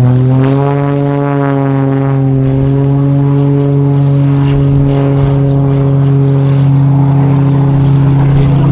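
Aerobatic biplane's piston engine and propeller, a modified Pitts S-2S, running steadily with a deep, even drone. Its pitch dips slightly in the first half-second, then holds level.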